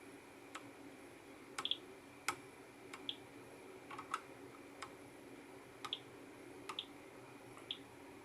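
Fingers tapping on a small touch screen control panel: faint, irregular light clicks about once or twice a second, several of them followed by a brief high blip.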